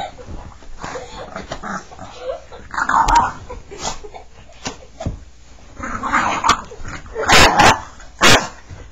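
Small dog, a pug, barking and yipping in short bursts, with a cluster of loud barks near the end.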